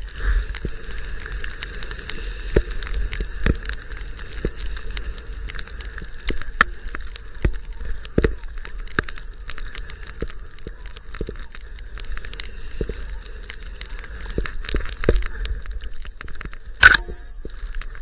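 Skis running through deep powder, heard from a camera on the skier: a steady hiss and low wind rumble on the microphone, broken by frequent irregular clicks and knocks, with the loudest sharp crack near the end.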